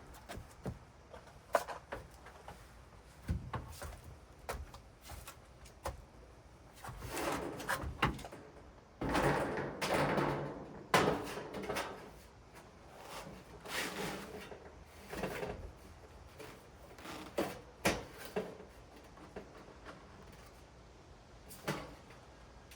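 Intermittent knocks, clicks and scrapes from handling wooden roof beams, hardware and screws during construction work. There are a few sharp knocks and a busier stretch of scraping and clatter about ten seconds in.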